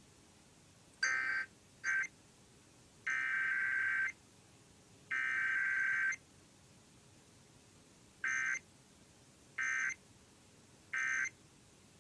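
Emergency Alert System SAME data tones: harsh, buzzy digital data bursts. There are two short bursts near the start, then two of about a second each, two seconds apart, then three short end-of-message bursts about a second and a half apart. This is a Required Weekly Test, so there is no attention tone and no message between the header and the end-of-message bursts.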